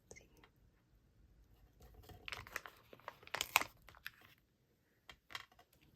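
Stamp-image sticker sheets and their plastic being peeled and handled: a few short, irregular crinkling and peeling rustles, mostly in the middle of the stretch.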